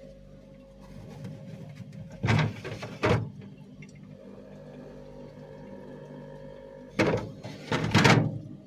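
Two pairs of short, loud knocks or thumps, the first pair about two seconds in and the second near the end, over a steady low hum.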